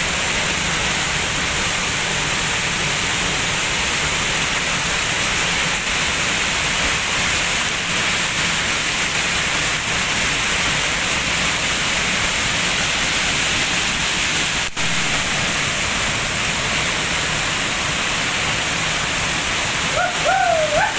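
Steady rushing of a waterfall pouring into a rocky river pool, with voices calling briefly near the end.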